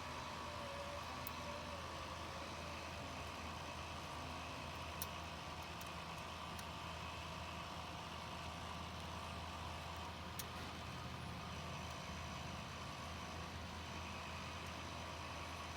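Steady low hum over even background noise, with a few faint, short clicks.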